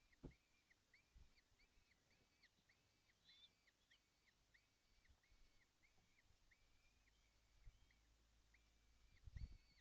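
Faint bird calls: short, even notes repeated about twice a second, with a few soft knocks, the loudest near the end.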